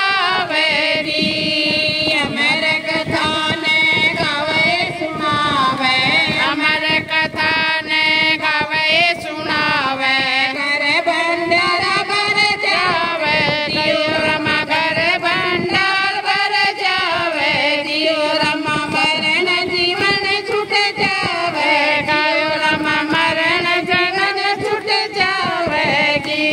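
A group of women singing a Hindi devotional bhajan together, one leading into a microphone and the rest joining in a repeating melody, with hand claps.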